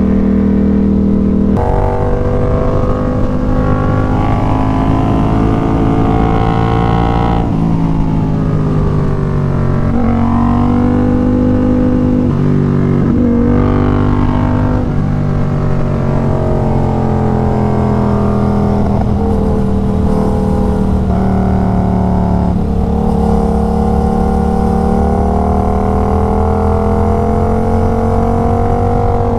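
Motorcycle engine running while riding, its note climbing and dropping several times as the throttle opens and closes.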